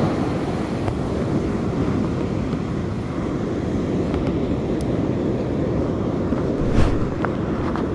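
Steady rush of surf breaking on a sandy beach, with wind buffeting the microphone. A brief knock near the end.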